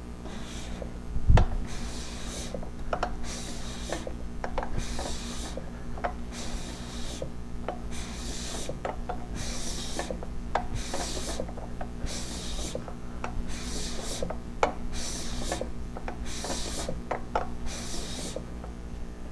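Curtiss OX-5 V8 aircraft engine being turned over slowly by hand: its exposed valve gear clicks and clacks as the springs, pull tubes and followers work, with a rasping swish about once a second. A single thump about a second in.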